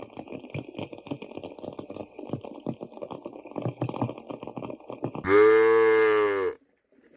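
A cow mooing once, a loud call of about a second near the end, preceded by a steady crackling, bubbling noise.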